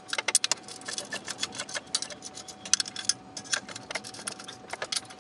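Socket ratchet clicking in quick runs as the clutch pressure plate bolts are run down and snugged against the flywheel, with a short pause about three seconds in.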